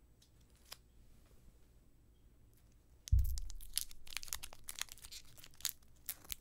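Hands handling a small makeup product and its packaging. A thump about three seconds in is followed by a quick run of crackling, tearing clicks.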